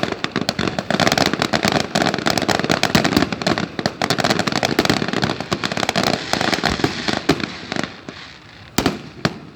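Aerial fireworks going off in a dense run of rapid crackling bursts, which thin out near the end into a few separate sharp bangs.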